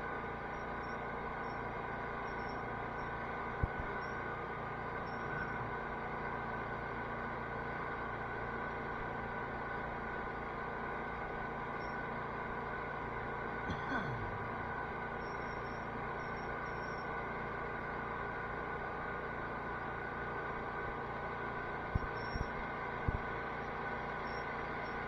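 A garden tractor's engine running steadily, with a few short knocks about four seconds in and again three times near the end.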